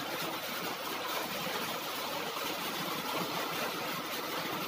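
Steady rain falling, an even, unbroken noise with no separate strikes.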